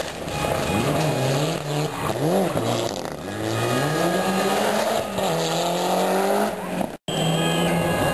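Rally car engine revving hard, its pitch swinging up and down several times as the driver works the throttle. Near the end it cuts off abruptly and returns as a steadier engine note.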